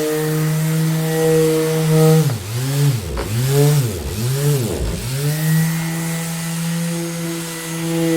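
Electric orbital sander running with a steady motor hum. Between about two and five seconds in, its pitch dips sharply and recovers three times before it settles back to a steady speed.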